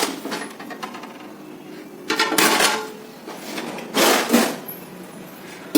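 Metal kitchenware clinking and scraping in three short clatters as a lid is found and set on the cooking pot.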